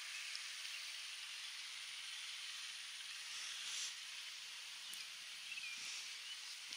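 Outdoor background ambience: a steady faint hiss, with a faint tick about five seconds in and a short faint chirp soon after.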